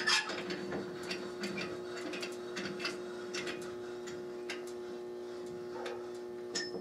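Light, irregular clicking and ticking, a few clicks a second, as the table saw's blade is cranked up through the throat plate. A steady low hum sounds underneath.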